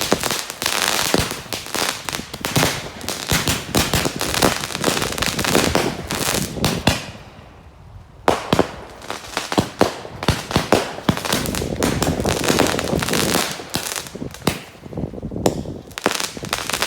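Fireworks going off: a dense run of rapid crackling bangs that eases about seven seconds in, then picks up again with sharper, more separate bangs and short gaps until near the end.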